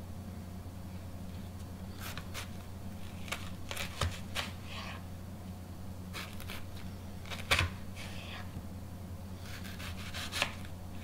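Chef's knife slicing down through an onion onto a plastic cutting board: about a dozen irregular cutting taps, the loudest a little after halfway. A steady low hum sits underneath.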